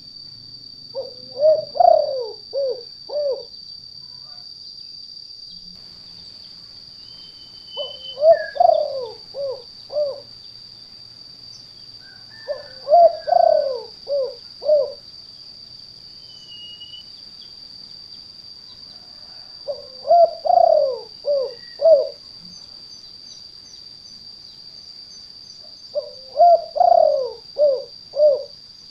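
Spotted dove (tekukur) cooing its 'kuk 2' call, the type used as a lure: five call phrases about six seconds apart, each a short note, a longer bending coo and two or three quick closing notes. A steady high whine sits underneath.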